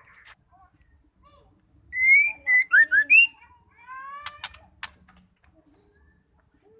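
White-rumped shama singing: a loud burst of short, clear whistled notes about two seconds in, then a run of rising whistles and a few sharp clicking notes.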